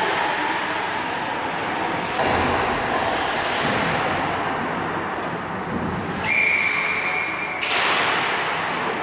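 Ice hockey game sounds in a rink: a steady wash of skates and play noise with occasional thuds. Near the end comes a steady high tone about a second and a half long, cut off by a sharp, loud noise.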